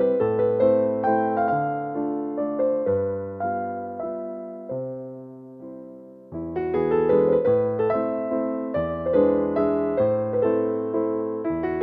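Background music, a keyboard melody of struck, fading notes. The notes thin out and fade until about six seconds in, then pick up again, louder and busier.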